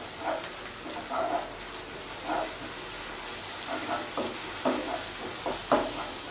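Sliced onions and ginger-garlic paste sizzling in hot oil in a non-stick pan, stirred with a wooden spatula that scrapes and taps against the pan in short, irregular strokes.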